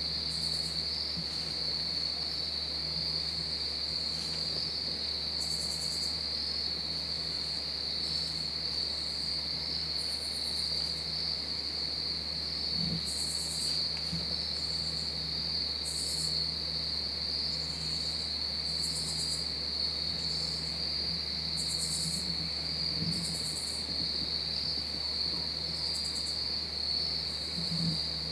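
Crickets chirring in a steady, unbroken high trill, with shorter buzzing insect calls coming and going above it every second or two.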